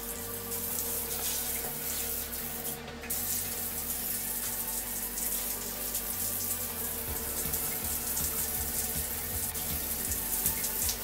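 Jet of water from a handheld bidet spray hose hissing onto floor tiles and the toilet bowl, briefly cutting off a little before three seconds in.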